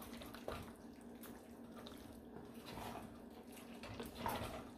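Wooden spoon stirring thick, cheesy macaroni in a metal pot: faint, wet squishing, with a few louder strokes about half a second, three and four seconds in, over a low steady hum.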